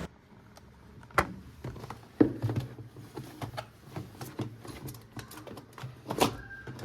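Irregular sharp clicks and light knocks of parts being handled at a refrigerator's defrost-timer area, over a low steady hum.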